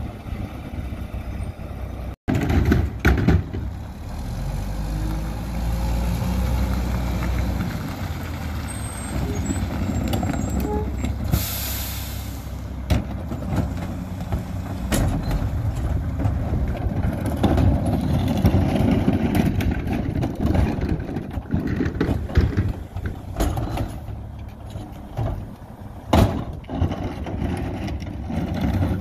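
Mack LE garbage truck with a McNeilus rear loader running while its cart tipper and packer work at the rear, with metal clanks of a cart being dumped into the hopper. A short burst of air hiss comes about twelve seconds in.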